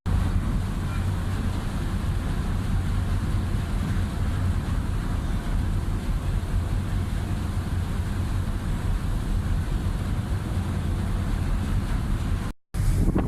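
Steady low drone of a car ferry's engines heard on board, with a rushing of wind and water over it. It cuts off abruptly near the end.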